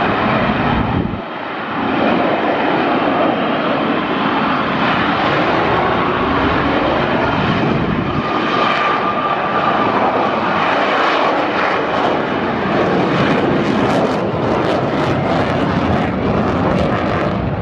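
F-35B Lightning II's single F135 turbofan jet engine running loud and steady, with a brief dip about a second in and a faint whine around the middle.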